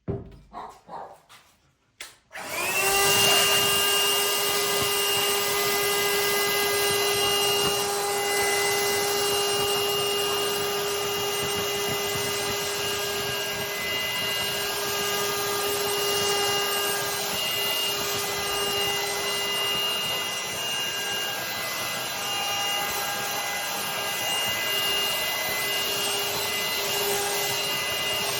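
A few handling clicks, then the Parkside PHSSA 20-Li D2 cordless handheld vacuum cleaner switches on about two seconds in. Its motor spins up quickly to a steady high whine with a hiss of air.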